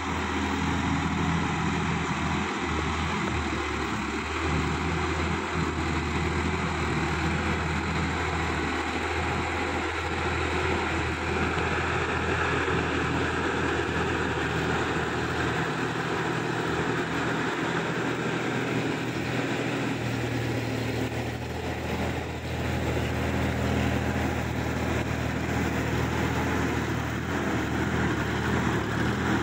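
Sonalika DI 50 tractor's diesel engine running steadily under load as its rotary tiller churns wet mud in a flooded field.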